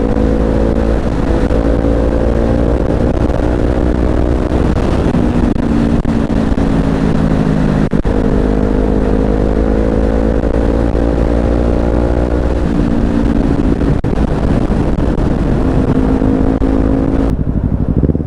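Kawasaki Z250's 250 cc engine running at speed, its note climbing slowly and then dropping several times as the rider shifts and works the throttle, with heavy wind rush on the microphone. About a second before the end it cuts to quieter traffic.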